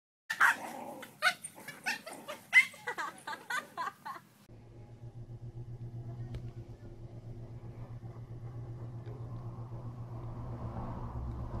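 Several golden retrievers barking and yelping in a quick, excited series for about four seconds. After a sudden cut, a low, steady hum with a fast pulse runs on quietly.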